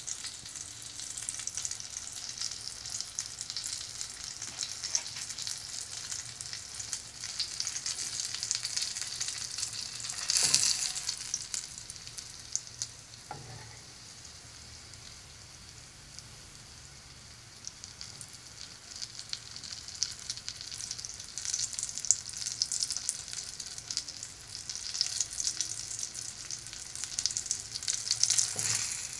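Breaded salmon-and-avocado sushi roll frying in hot oil in a pan: a steady crackling sizzle, with a louder surge about a third of the way in, a quieter spell past the middle, and the crackling building up again toward the end.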